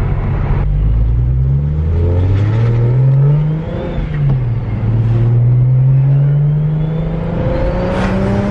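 Single-turbo BMW N54 inline-six on a VRSF 3.5-inch exhaust with the street muffler, accelerating hard: the engine note climbs, drops at a gear change about four seconds in, then climbs again. With the muffler fitted the exhaust is quiet for sure.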